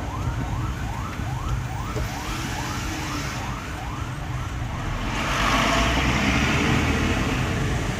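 Escort emergency-vehicle siren in fast yelp mode, a quick rising sweep repeated about four times a second, over the low rumble of the moving vehicle. The siren stops a little over three seconds in, and a louder steady hiss takes over near the end.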